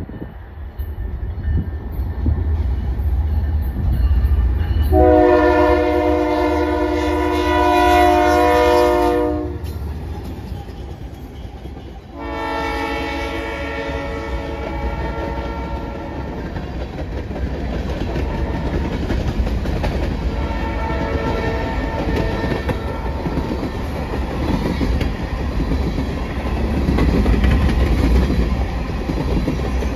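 Diesel freight train's multi-tone air horn sounding two long blasts, then a shorter, fainter third, over the rumble of the approaching locomotives. The covered hopper cars then roll past with a steady rumble and clickety-clack of wheels over rail joints, growing louder near the end.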